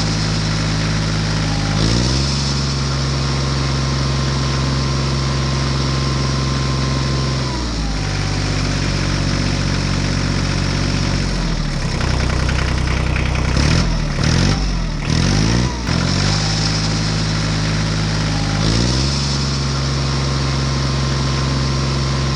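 A small engine running steadily, its speed stepping up or down several times. In the middle it wavers rapidly up and down for a few seconds.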